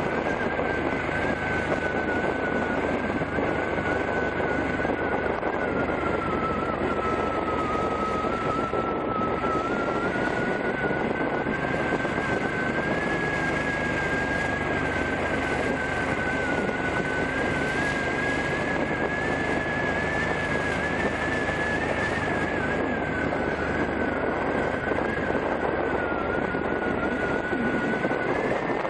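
Motorcycle riding at road speed, heard through heavy wind rush on a head-worn microphone. A steady high whine drifts slowly down in pitch and back up again.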